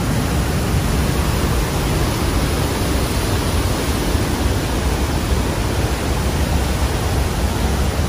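The Rhine Falls, a large river waterfall, heard close up: a loud, steady rush of falling, crashing water.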